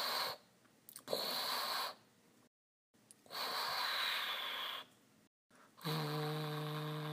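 Mouth-made spaceship sound effects: breathy rushing hisses, a short one, then a second of about a second, then a longer one, for the ship flying in and landing. About six seconds in comes a steady hummed buzz for the hatch door opening.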